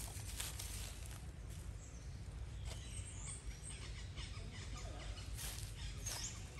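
Long-tailed macaque's hand scratching and scraping through dry leaf litter and soil, a few short scrapes near the start, over a low outdoor rumble. A few faint high bird chirps come later.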